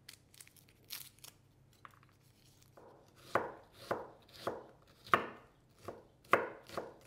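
Kitchen knife chopping onion on a wooden cutting board, sharp regular strokes about two a second starting about three seconds in. Before that, only faint small clicks of a garlic clove being peeled by hand.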